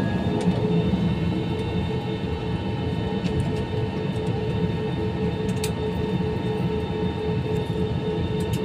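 Airbus A320 cabin noise on the ground: the jet engines' steady hum with a low rumble and a steady whine-like tone, and a few faint clicks.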